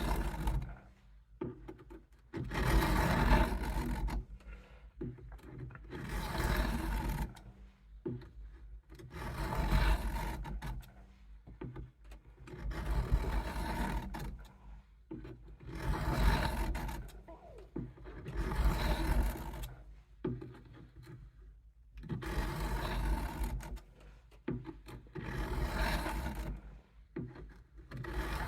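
Case USMC knife blade drawn across a coarse 200-grit sharpening stone, one gritty rasping pass every three seconds or so, about nine slow strokes with short pauses between, as the edge is being reprofiled.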